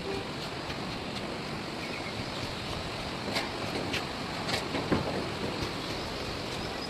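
Steady rushing outdoor noise, like wind on the microphone, with several short sharp knocks or clicks in the middle.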